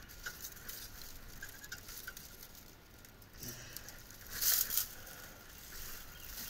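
Light clicks and small rattles of hand tools and metal parts being handled, with a brief rustling scrape about four and a half seconds in.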